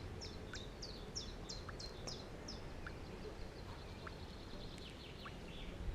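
Small songbird singing: quick downward-sweeping chirps, about three a second, turning into a faster trill about halfway through, with a second, lower short call repeating through it. Faint, over low steady outdoor background noise.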